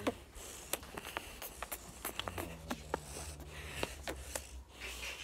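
Handling noise from a phone being moved about: rustling with many short, light clicks and knocks over a low steady hum.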